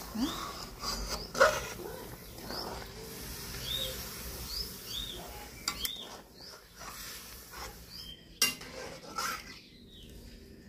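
Metal spatula stirring and scraping thick curry in an aluminium kadhai, with sharp clinks against the pan. A bird chirps over it, several short chirps.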